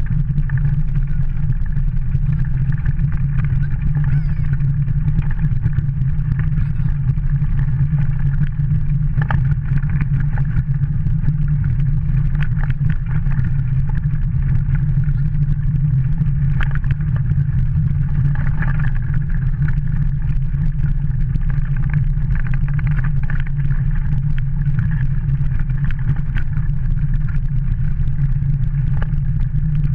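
Steady low rumble of a wheeled dog kart rolling over a rough gravel and snow track, heard from a camera mounted on the kart.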